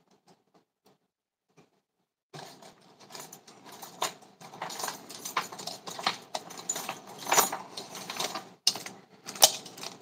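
Small metal pieces jingling and clicking as they are rummaged through and handled, a dense, continuous rattle that starts about two seconds in after near silence.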